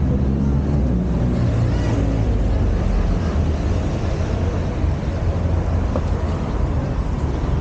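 Steady city street traffic noise: passing cars running with a continuous low rumble.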